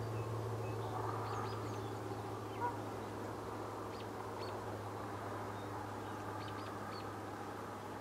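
Faint scattered duck quacks, with a brief clearer note about a third of the way in, and short high chirps, over a steady low hum.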